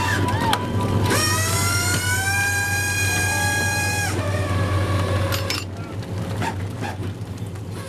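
Steady low hum of a purse seiner's engine and deck machinery, with a whine that rises about a second in, holds for about three seconds, then stops; the whole sound fades out near the end.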